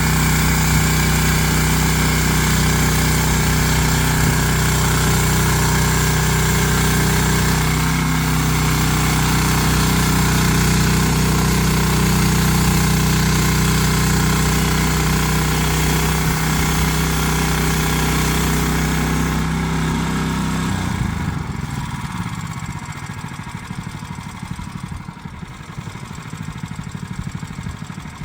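Small gasoline engine of a Hudson portable bandsaw sawmill running steadily under load while the band blade cuts through a white birch log. About 21 seconds in, the sound drops to a quieter, rougher running.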